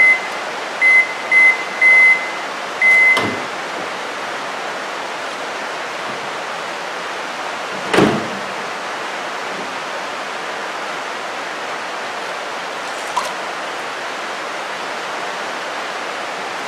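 Whirlpool microwave oven's beeper sounding five short high tones in the first three seconds as its heating cycle ends, over a steady hiss of rain. A single sharp knock about eight seconds in, with a light click later.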